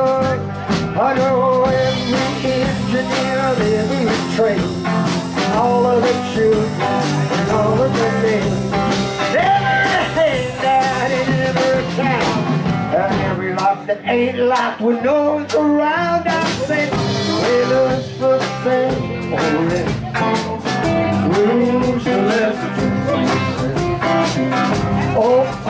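Live band playing a blues-rock tune on electric guitar, electric bass and drum kit, with a melody line bending in pitch over steady drum strikes. Recorded on a camera's onboard microphone.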